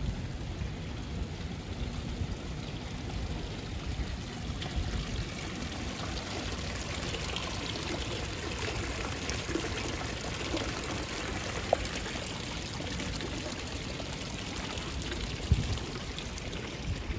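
Fountain water splashing and trickling steadily, over a low rumble with a couple of thumps.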